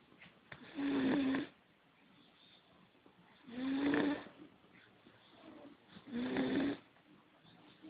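A person snoring in sleep: three snores about two and a half seconds apart, each lasting under a second.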